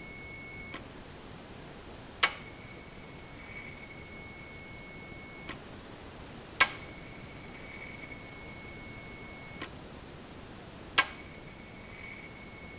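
Electronic throttle body of a 2013 Hyundai Genesis Coupe 3.8 GDI, ignition on with the engine not running, giving a sharp click each time the gas pedal is lightly pressed. Each click is followed by a steady high whine from its electric motor that lasts about three seconds and ends in a softer click. This happens three times, and the owner takes the noise for abnormal, a sign of a faulty throttle body or throttle motor.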